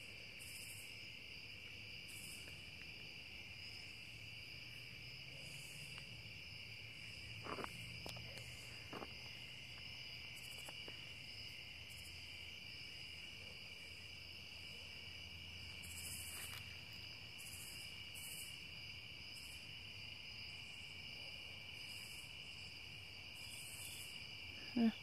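Evening insect chorus of crickets: a steady high trill, with a higher pulsing call that comes and goes every couple of seconds. Two soft knocks about halfway through.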